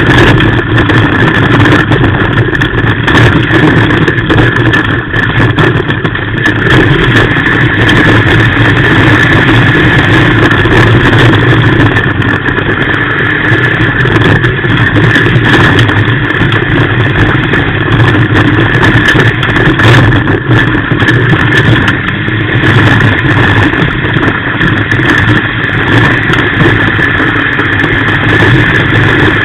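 Rally car engine running hard, heard very loud from inside the stripped cabin, with road noise from the dirt track; it stays steady with no clear revving up or down.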